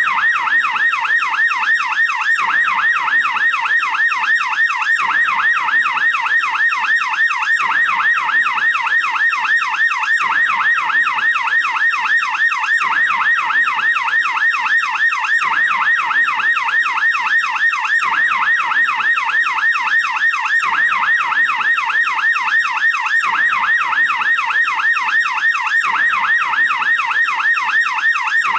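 American police car yelp siren: a fast, steady warble, its pitch sweeping up and down several times a second without a break.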